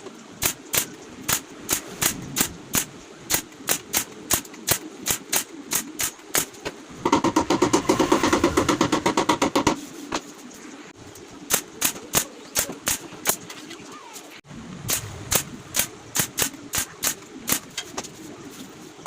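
Irregular sharp knocks, about two or three a second, from work on a wooden flight case. About seven seconds in, a denser continuous noise lasts for some three seconds.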